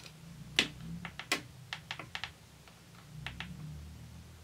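Plastic keypad buttons of a Mobiwire Pictor feature phone clicking under a thumb, about a dozen presses, with two louder clicks in the first second and a half and a quick pair about three seconds in.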